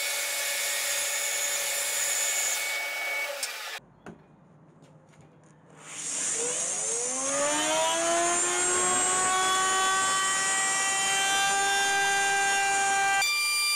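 A bandsaw running as wood strips are fed through it, cut off abruptly by a short quiet gap; then a JCB plunge router's motor spins up, its whine rising over about two seconds and settling to a steady high pitch.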